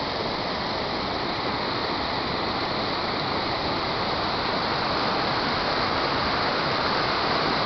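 Steady rush of a waterfall and whitewater creek tumbling over rocks and fallen logs, a little louder near the end.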